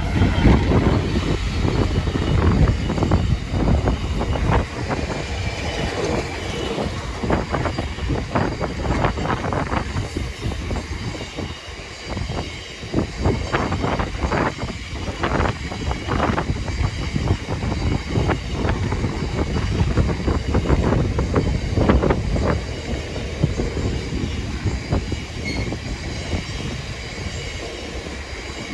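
GB Railfreight Class 66 diesel locomotive, with its EMD two-stroke V12, running past at the start. A long train of bogie hopper wagons follows, rolling by with the wheels clattering and knocking over the rail joints, easing off slightly near the end.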